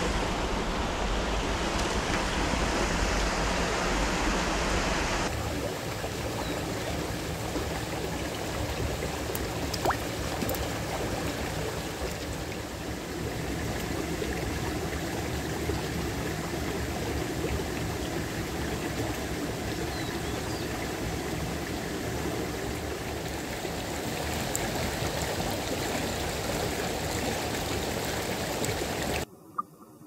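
Steady rush of a small mountain creek flowing over rocks. It drops away abruptly just before the end.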